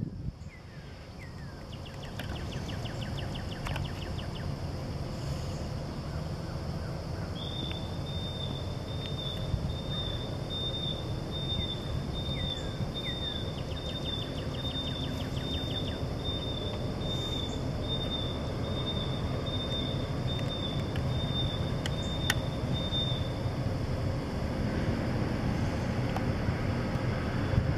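Diesel locomotive approaching and passing underneath, its low engine rumble growing steadily louder.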